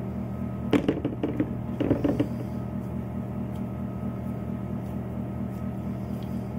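A steady electrical appliance hum, with two short bursts of soft handling noise about one and two seconds in as cookie dough is squished and rolled between the hands.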